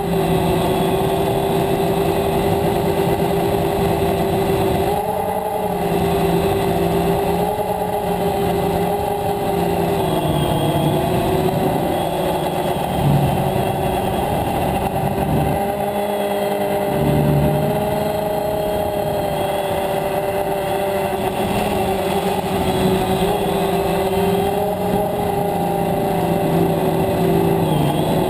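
DJI Phantom quadcopter's electric motors and propellers heard from the camera on board: a steady buzzing whine whose pitch wavers slightly up and down as the motors adjust their speed in flight.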